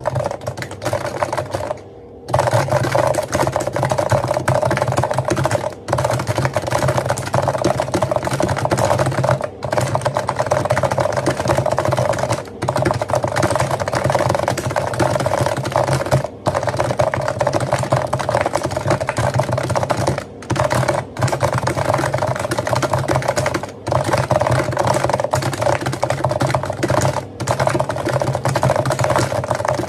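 Realforce GX1 Plus keyboard with 45 g electrostatic capacitive (Topre-type) switches being typed on fast and continuously, a rapid run of keystrokes broken by brief pauses every few seconds.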